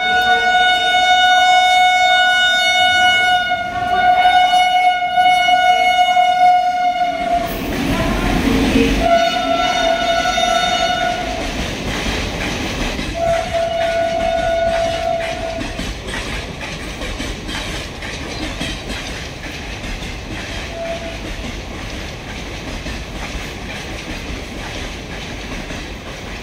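WAP-7 electric locomotive's horn sounding one long blast of about seven seconds, then a rush of noise as the locomotive passes at speed. Two shorter horn blasts and a brief one follow over the steady noise of passenger coaches running through the station, slowly fading.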